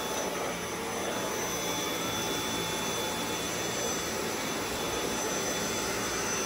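Dyson V8 cordless stick vacuum running steadily on its regular (non-max) power setting while vacuuming a floor: an even rush of air with a faint high whine.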